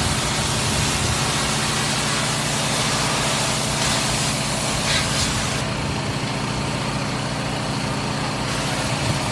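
A pressure washer's engine running steadily under the hiss of the high-pressure water spray. The highest part of the hiss fades about halfway through and returns near the end.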